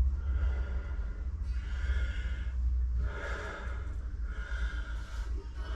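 A man breathing heavily, four long breaths in a row of about a second each, over a steady low rumble.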